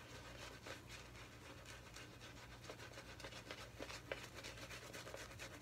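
Shaving brush worked over a lathered face: faint, quick scratchy-wet rubbing of the bristles through shaving soap lather, stroke after stroke.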